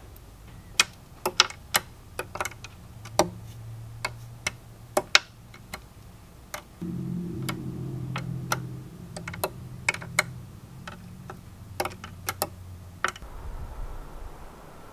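A string of irregular sharp clicks and ticks, about one or two a second, with a low hum underneath through the middle stretch.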